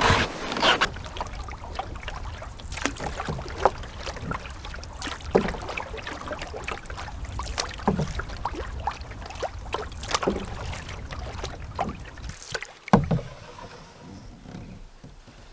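A canoe being paddled: irregular splashes and drips from the paddle, with sharp knocks, over a low wind rumble that fades near the end.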